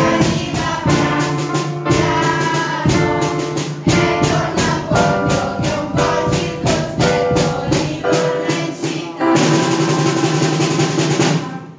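Music with a steady beat, a strong beat about once a second, with a group of children singing along. It ends on a long held chord that stops shortly before the end.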